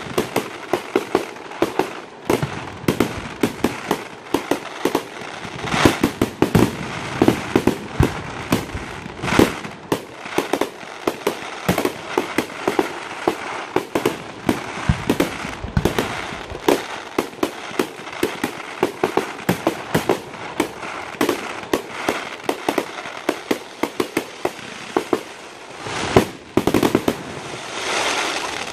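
Fireworks display going off in a dense, rapid string of bangs and crackles, several a second, swelling into a louder crackling rush near the end.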